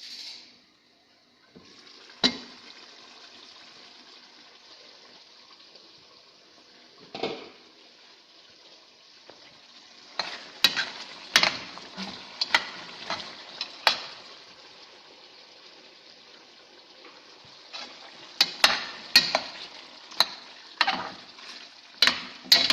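Chicken curry sizzling in a pot while a spoon is stirred through it, knocking and scraping against the pot in two quick runs of strokes, with single knocks before them.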